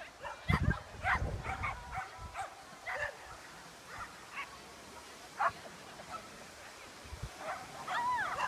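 A dog barking and yipping in short repeated calls, with longer whining calls that rise and fall near the end. A low thud sounds about half a second in.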